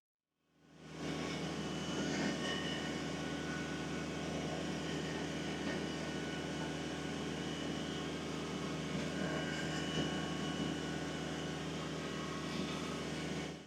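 Kubota BX23S compact tractor's three-cylinder diesel engine running steadily.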